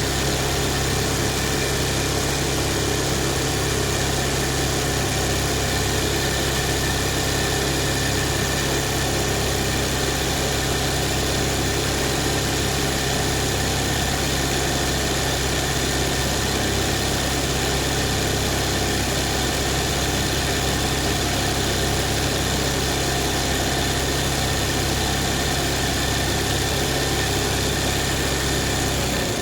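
Embroidery machine running steadily while stitching a design: a continuous, even mechanical hum.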